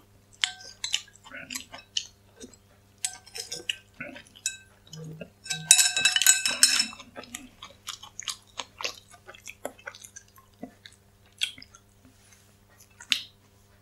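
Close-miked eating: a person chewing and sipping soup broth, with a metal spoon and chopsticks clicking and scraping against a porcelain bowl. A dense run of ringing clinks comes about six seconds in, followed by a few sparser clicks as the utensils are set down in the bowl.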